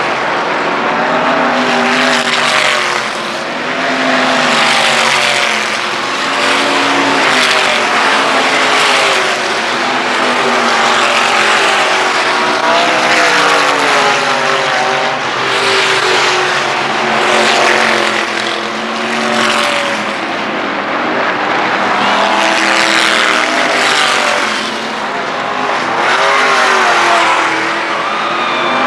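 A field of dirt-track race cars circling at racing speed, the engines loud and steady, swelling and fading with wavering pitch as cars go past.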